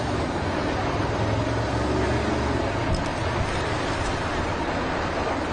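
Steady low engine rumble under a constant wash of outdoor noise, without breaks or changes.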